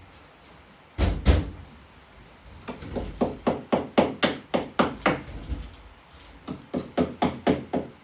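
Repeated sharp blows of a tool striking something solid: two heavy strikes about a second in, then runs of quicker blows at about four a second, with a short break near the six-second mark.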